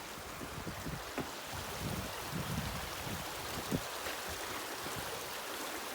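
Steady rushing water of a stream, with a few soft low knocks over it.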